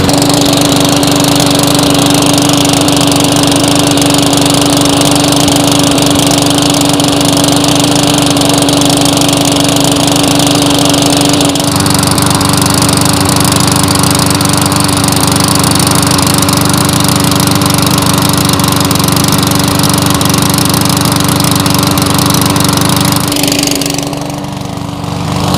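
Briggs & Stratton 300E-series single-cylinder four-stroke lawn mower engine running steadily at governed speed on gasoline. Its sound shifts abruptly about halfway through and gets quieter near the end.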